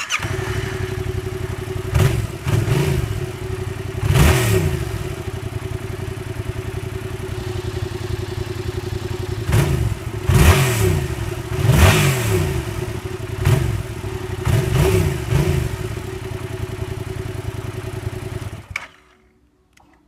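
Yamaha MT-07's 689 cc parallel-twin engine breathing through an aftermarket Akrapovic titanium exhaust. It idles, the throttle is blipped in a series of short revs rising and falling sharply, and the engine stops near the end.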